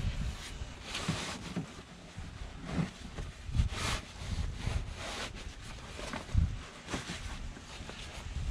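Camo fabric seat cover rustling and rubbing as it is pulled and tucked over a truck seat, in irregular swishes with a few dull knocks against the seat.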